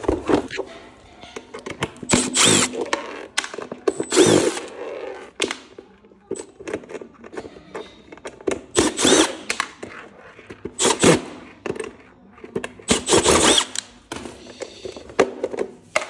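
Milwaukee cordless impact driver run in about five short bursts of a second or less, its bit working in the fixing holes of a plastic horse drinker, with small clicks and knocks of handling between the bursts.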